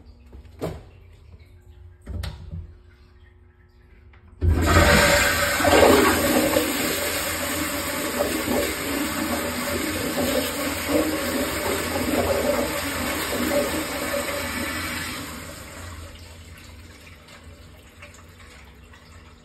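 Acorn stainless steel toilet flushing from a wall push-button flush valve. A few light clicks come first, then about four seconds in a sudden loud rush of water runs for about ten seconds before dying down to a quieter trickle.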